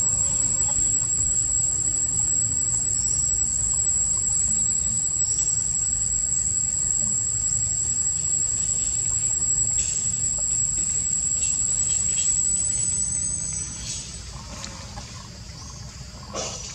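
Insects droning steadily in one high-pitched tone, which stops about thirteen seconds in, leaving a few faint rustles and clicks.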